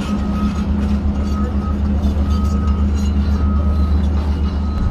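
Steady low diesel engine rumble from a ship passing through the canal, with a faint high tone repeating about once a second over it.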